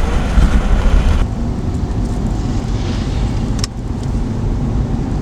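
Car interior noise while driving: a steady low rumble of road and engine, with a hiss that drops away abruptly about a second in. A single sharp click a little past halfway.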